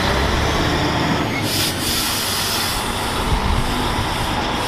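Heavy tanker truck with its trailer driving on a road: a steady low engine rumble under road and wind noise.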